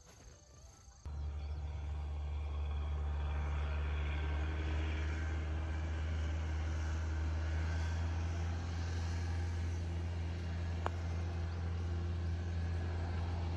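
A steady engine drone, a low even hum that starts abruptly about a second in and holds without change. Late on, one sharp click as a putter strikes a golf ball.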